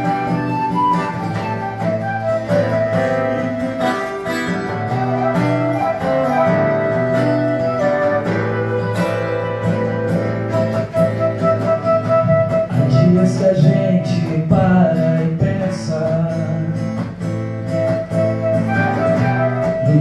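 Folk music played on acoustic instruments: a flute melody over guitar, with a steady bass line.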